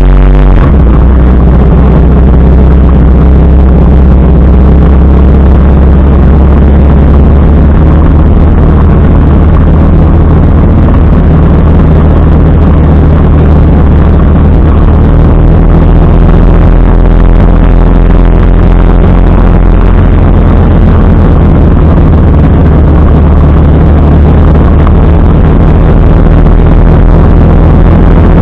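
Motorcycle engine running loud and steady while riding at road speed, a low drone with a rushing noise over it; the engine note shifts slightly a little past halfway through.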